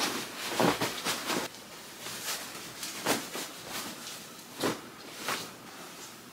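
Fabric rustling and swishing as pillows are worked into pillow shams, with a few soft thumps as the pillows are handled and set down.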